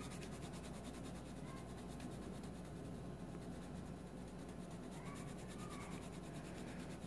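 Faint scratching of a coloured pencil shading over paper, colouring in a word in a word-search puzzle.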